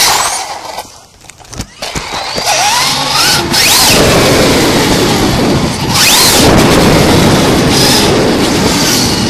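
Brushless electric RC truck's motor and drivetrain whining as it drives over concrete, with tyre noise. The pitch rises with each burst of throttle. It drops away for about a second shortly after the start, then picks up again.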